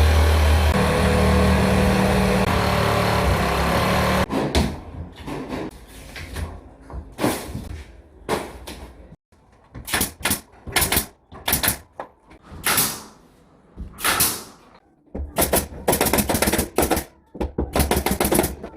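A loud steady hum with low tones that cuts off about four seconds in, followed by a series of irregular scraping strokes, roughly one a second, each short and separate.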